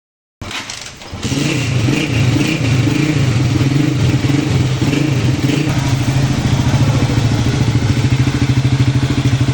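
Honda CG150 single-cylinder pushrod four-stroke motorcycle engine running steadily with an even, fast pulse, freshly fitted with a new camshaft and new timing gears to cure a worn cam-gear noise.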